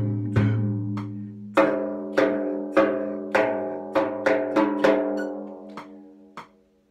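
Bendir frame drum playing the Firenkçîn usûl: struck strokes with a long ringing tone, about one every 0.6 s, coming quicker between about four and five seconds in, then growing softer toward the end.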